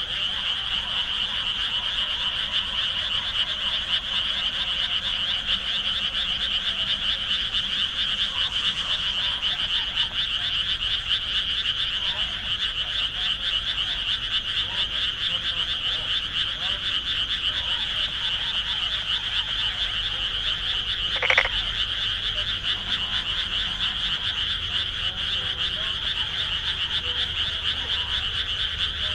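Dense frog chorus: many frogs croaking together in a steady, unbroken mass of calls. About two-thirds of the way through, one short, louder sound stands out above the chorus.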